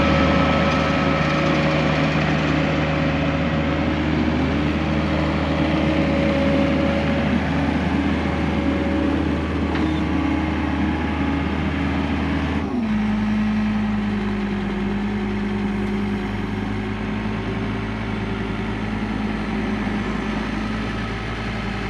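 John Deere compact track loader's diesel engine running steadily as the loader works beside the pickup and lifts a bucket of dirt over the bed. About two-thirds of the way through, the engine note drops suddenly to a lower steady pitch.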